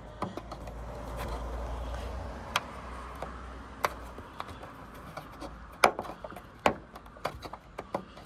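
Plastic liftgate trim panel on a Ford Transit Connect being pressed back into place, with rubbing and handling noise and several sharp clicks as its clips snap in, the loudest about six seconds in.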